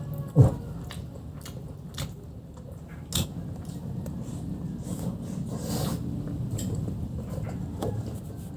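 Close-miked chewing and biting of fried chicken, with a run of sharp crunches and clicks. The loudest is just after the start, and another comes about three seconds in.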